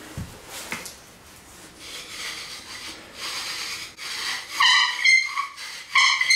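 Bow drill in use: the wooden spindle grinds in the hearth board with each back-and-forth stroke of the bow. About four and a half seconds in, the grinding turns into loud squeaking that starts and stops with each stroke.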